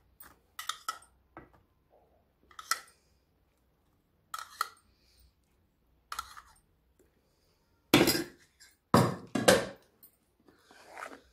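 A metal spoon clinking and scraping against plastic bowls as milk is spooned over fruit. There are several separate short clinks and scrapes, with a cluster of louder knocks and clatters about eight to ten seconds in, then a softer scrape near the end.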